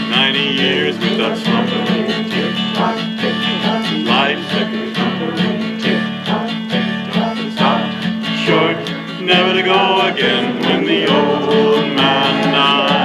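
Acoustic guitar accompaniment playing on without singing as the instrumental close of the song, plucked notes in a steady, even beat.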